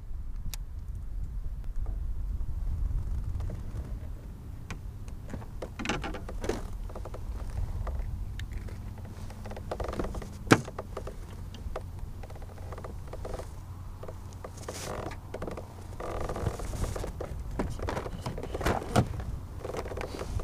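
Wind rumbling on the microphone, with scattered clicks, rattles and rustles of fishing gear being handled in a kayak, including a plastic tackle box near the end; one sharp click about ten seconds in is the loudest sound.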